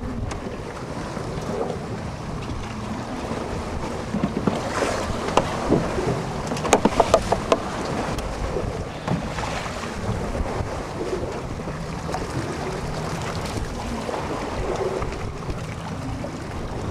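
Wind buffeting the microphone over choppy water slapping a small boat, a steady rushing rumble. A quick run of sharp clicks comes a little past the middle.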